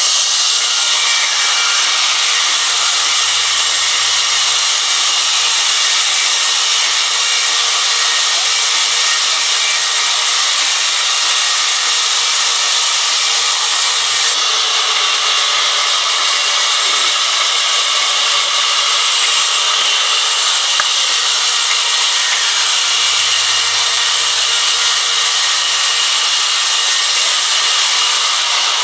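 Large sawmill band saw ripping lengthwise through a long timber slab: a steady, loud, hissing saw noise of the blade in the wood, unbroken throughout.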